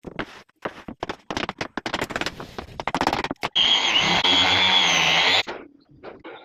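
Woodworking sounds: a quick run of knocks and scrapes on wood, then a power tool running loudly for about two seconds before cutting off suddenly.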